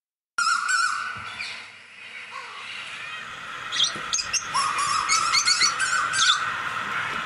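Birds chirping and trilling in a continuous outdoor chorus, with a run of sharper, louder chirps between about four and six and a half seconds in.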